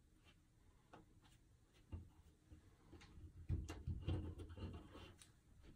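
Cardboard jigsaw puzzle pieces tapping and sliding on a tabletop as they are picked up and pressed into place: faint scattered clicks, busier from about two seconds in.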